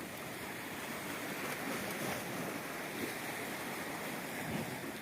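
Sea surf washing onto a sandy beach: a steady rushing noise, with some wind.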